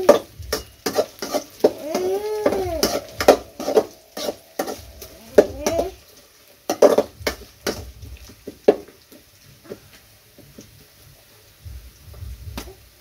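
Metal spatula stirring and scraping fried onion, chilli and nuts in a thin aluminium kadai: sharp clicks and scrapes against the pan, busy for the first several seconds and then sparser. Drawn-out animal cries that rise and fall, like a cat's meow, come about two and five seconds in.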